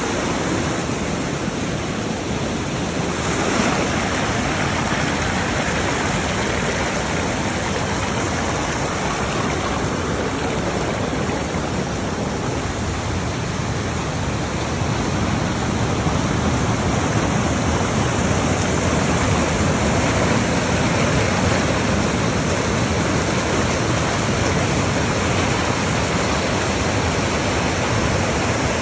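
Waterfall and rocky rapids of a forest stream: white water rushing over rocks in a loud, steady, unbroken rush.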